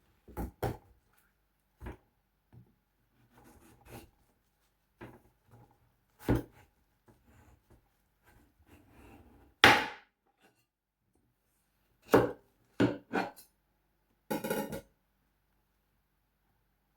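Knife cutting watermelon on a cutting board: scattered, irregular knocks, with one longer, louder stroke about ten seconds in and a quick cluster of knocks near the end.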